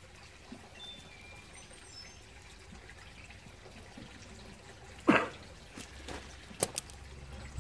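Faint, even background hiss with a few sharp knocks and clicks. The loudest knock comes about five seconds in, with two lighter clicks after it.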